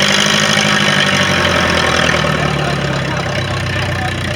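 Flex-wing microlight's engine running steadily, its pitch dipping slightly about halfway through and the sound easing a little toward the end.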